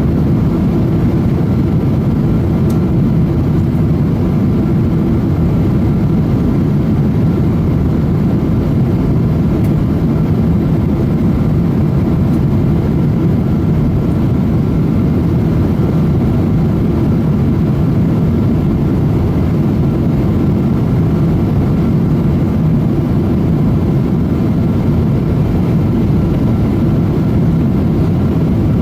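Steady cabin noise of a Boeing 777-200 airliner in flight: a constant low rush of airflow and jet engines, with a few faint steady tones above it.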